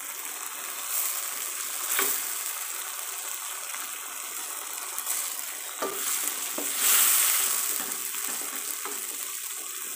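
Curry gravy sizzling in a steel wok as fish pieces are laid in and pushed around with a wooden spatula. There are a few sharp knocks of the spatula against the pan, and the sizzle swells briefly about seven seconds in.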